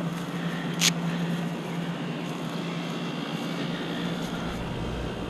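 Steady low mechanical drone, with one sharp click about a second in.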